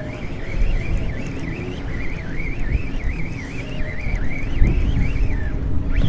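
A baitcasting fishing reel being cranked to bring in a hooked fish, giving off a thin high whine that wavers up and down several times a second and fades out near the end. Under it, wind buffets the microphone with a steady low rumble.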